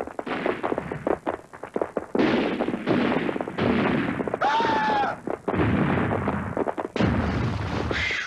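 Cartoon sound effects of a huge boulder tumbling down a rocky canyon slope. It starts as a rapid run of knocks and thuds, then turns into long, heavy rumbling crashes.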